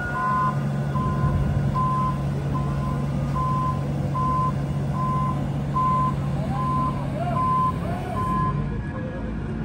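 Heavy machine's reversing/travel alarm beeping steadily, about one beep every 0.8 seconds, over a running diesel engine; beeps and engine hum stop near the end.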